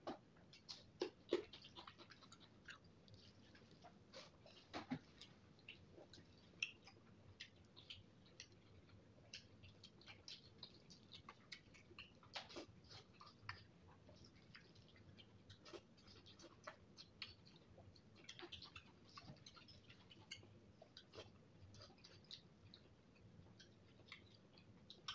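Quiet mouth sounds of someone eating spicy noodles with his hand: chewing with scattered short wet clicks and smacks at an irregular pace.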